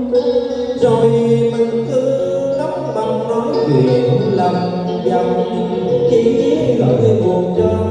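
Music from a Vietnamese tân cổ giao duyên song: a bending melodic line over steady accompaniment.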